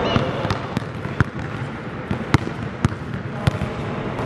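A basketball being dribbled on an indoor gym court: sharp bounces at an uneven pace, about two a second.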